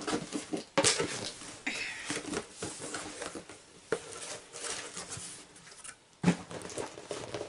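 Cardboard packaging being opened by hand: a rigid box lid lifted off, then the flaps of a white inner carton folded open, with scraping, rustling and tapping of cardboard. A sharp knock about a second in and a louder one a little after six seconds.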